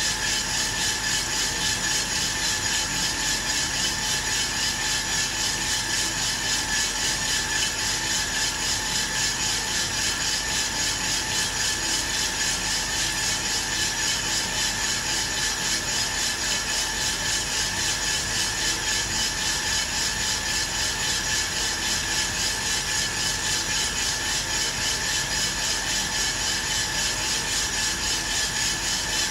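Aillio Bullet R1 V2 drum coffee roaster running mid-roast: its fan and the beans tumbling in the turning drum make a steady rushing hiss with a slight regular pulse. There are no cracking pops yet.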